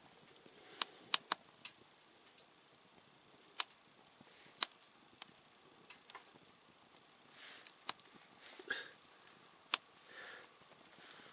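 Wood campfire crackling: sharp, irregular pops and ticks from the burning wood, each one brief, over a faint steady hiss of the flames.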